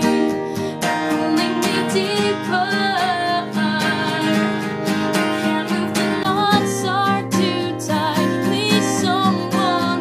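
A woman singing while strumming an Alvarez acoustic guitar. The recording switches between a Tascam iM2 stereo condenser microphone on an iPod and a Canon 60D camera's built-in microphone.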